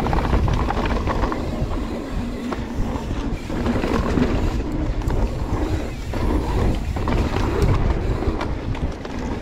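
Mountain bike riding fast down a loose dirt trail: wind buffeting the camera microphone over the rumble of knobby tyres on dirt, with the bike's chain and frame rattling over bumps.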